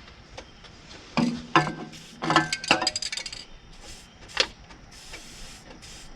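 Metal clinking and clanking from tools and bolts being handled on steel: a few ringing knocks about a second in, another cluster around two and a half seconds, and one sharp click a little after four seconds.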